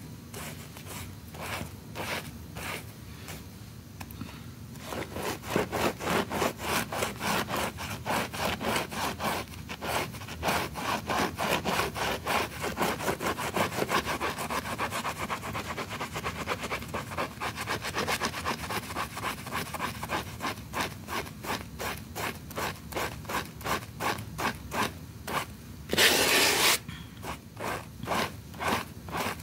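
A stiff brush scrubbing a wet rug in quick back-and-forth strokes, about three a second, getting steadier and louder a few seconds in. Near the end there is a brief, louder rush of noise.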